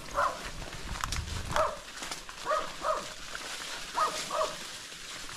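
A dog barking repeatedly in short barks, mostly in quick pairs about a second or so apart.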